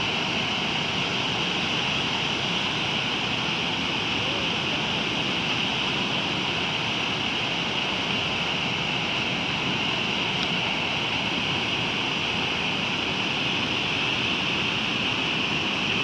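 Bhogatha waterfall swollen with flood water: a steady, unbroken rush of water pouring over the falls and churning through the river below.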